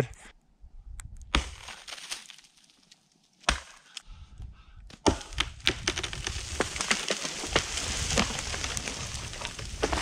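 A few separate axe blows on a dead aspen trunk. Then, from about five seconds in, a long run of cracking and splintering as the dead wood gives way and the tree comes down.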